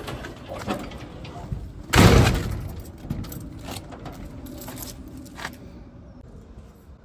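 A ribbed steel garage door pulled down and shut with a loud metallic bang about two seconds in, rattling briefly as it settles. This is followed by several small clicks and knocks as a key works the door's central lock.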